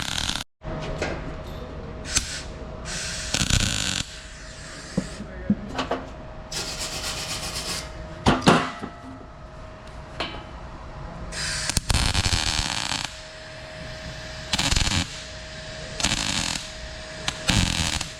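Metalworking on a steel exhaust pipe: a series of short bursts of rough, hissing noise, each under a second to about a second and a half long, over a steady hum, with a couple of sharp metallic knocks.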